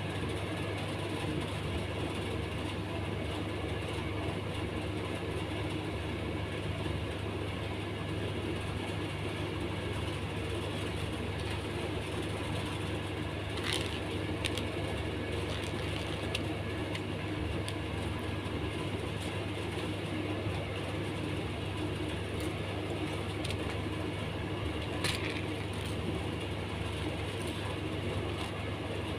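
Steady low background hum and rumble with an even hiss, unchanging throughout, and a couple of light sharp clicks about halfway through and again near the end.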